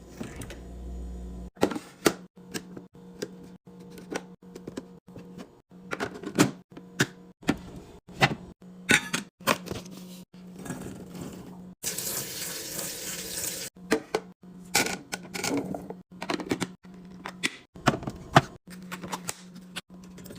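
Fridge restocking: a quick run of clicks and knocks as plastic containers, jars and lids are handled and set down on shelves. About twelve seconds in there are two seconds of rushing, water-like sound, typical of a drink being poured. The sound cuts off abruptly several times.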